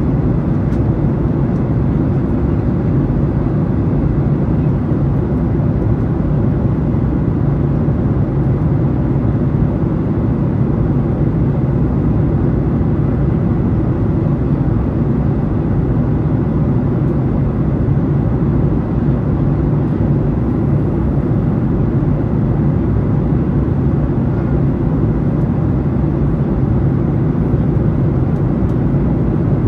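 Steady low rumble of a jet airliner's engines and rushing airflow, heard inside the passenger cabin in cruise flight.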